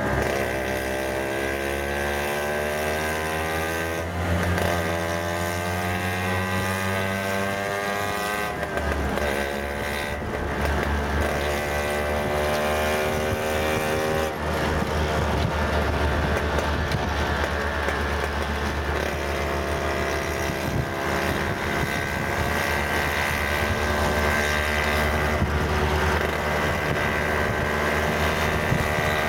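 Auto-rickshaw engine running while driving, its pitch climbing, dropping back and climbing again three times in the first half as it speeds up, then holding steadier, over road rumble.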